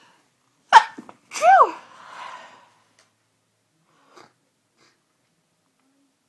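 A person sneezing: a sudden loud burst, then a voiced 'choo' that falls in pitch and trails off into a breath.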